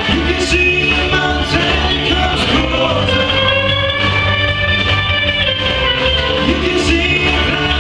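A rock band playing live: sustained electric guitar lines over bass and drums, with a drum hit about once a second.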